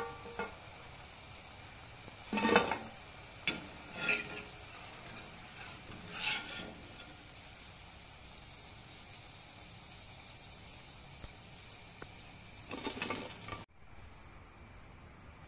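Hot oil sizzling steadily as battered cauliflower pieces deep-fry in a kadai, with a steel slotted ladle clinking and scraping against the pan several times as the pieces are scooped out. The sizzling cuts off suddenly near the end.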